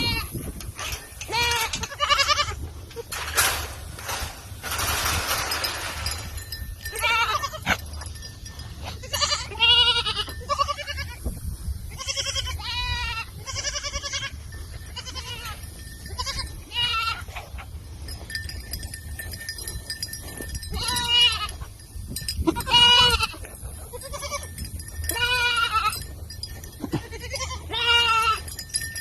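Goats bleating again and again: wavering, quavering cries at several different pitches, sometimes overlapping. A rustling hiss runs for a couple of seconds about three to six seconds in.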